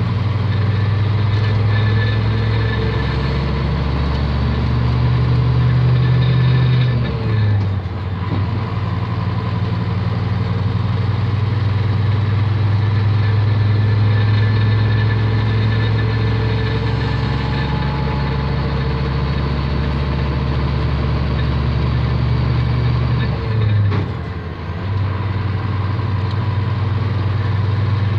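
Scania K310 coach's rear-mounted diesel engine pulling hard under load, its revs climbing steadily. Twice, once a quarter of the way in and again near the end, the note briefly dips and drops in pitch as the driver shifts up a gear.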